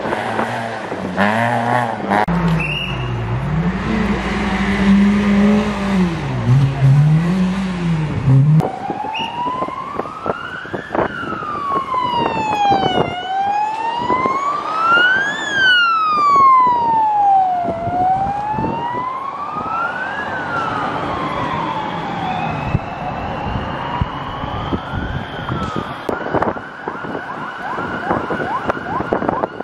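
A rally car's engine revving up and down through a hairpin for the first several seconds. Then a course car's siren wails slowly up and down, switching to a faster repeating glide near the end.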